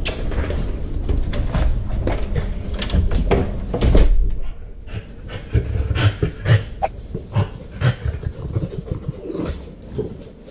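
A dog breathing close to a GoPro strapped to a husky puppy's harness, with the puppy's fur rubbing against the camera as a low rumble, loudest in the first few seconds, and scattered clicks and knocks from the mount.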